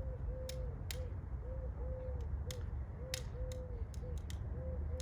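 Scattered sharp clicks and ticks, like the crackle of a capped plastic water bottle as dry ice builds pressure inside it, over a steady low outdoor rumble. A faint short tone that rises and falls repeats about ten times.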